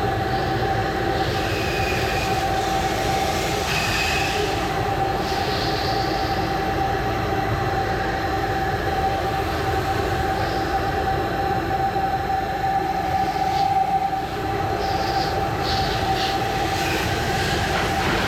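Pressure washer running steadily as its spray wets down the metal frame of a screened pool cage: a constant hiss of spray with a steady whine running through it.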